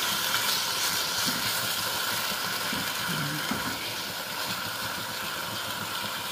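Marinated Korean barbecue meat sizzling in a frying pan, turned with a wooden spatula: a steady hiss.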